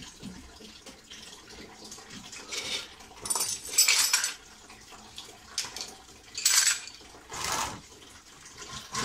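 A plastic washer fluid tank being worked loose in a car's wheel well, scraping and clattering against the bodywork in a series of short bursts, with washer fluid splashing.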